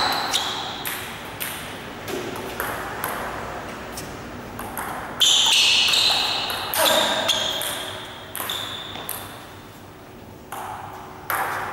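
Table tennis rally: the ball clicking sharply off the paddles and the table in quick succession, each hit ringing briefly in the echoing hall.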